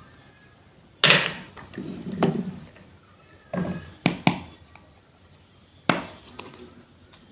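Wooden toy fruit and vegetable pieces and a toy knife knocking and clacking on a cutting board: several sharp wooden knocks, some in quick pairs.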